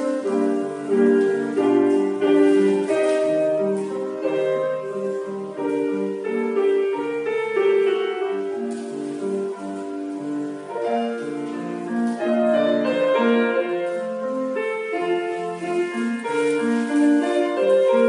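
Solo piano playing classical ballet-class accompaniment, a continuous run of notes and chords.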